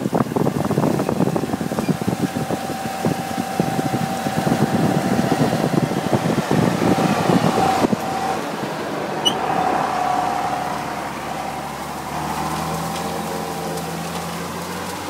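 John Deere tractor engine running as it pulls a Lely 15-metre rotary tedder through grass, with a steady whine over the engine. For about the first half, wind buffets the microphone hard. After that the sound turns smoother into a steady engine hum as the tractor goes close by.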